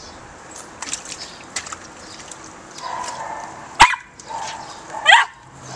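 Small dog barking twice, sharp short barks about four seconds in and again near the end, with faint splashes of it paddling in shallow water beforehand.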